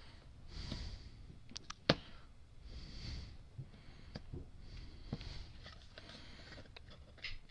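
A trading card being picked and peeled apart by hand: soft scraping of cardboard layers with a few sharp clicks of fingernail and card edge, the loudest about two seconds in.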